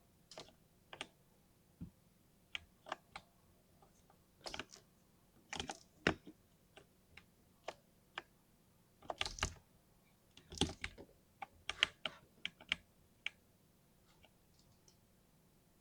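Mechanical keyboard with lightly lubed linear switches being typed on in irregular bursts: single keystrokes and quick runs of several, busiest through the middle and thinning out near the end.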